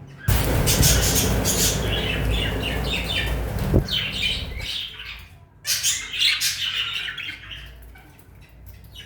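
Aviary birds squawking and chirping in two bouts of calls, with a loud low rumble under the first few seconds that stops suddenly.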